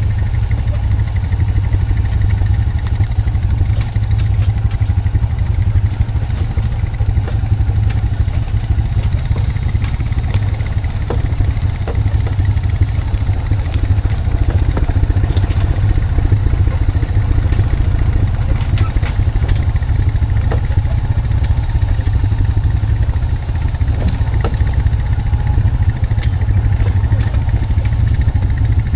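Honda Foreman 520 ATV's single-cylinder engine running steadily, towing a log on a skidding arch, with scattered light clatter.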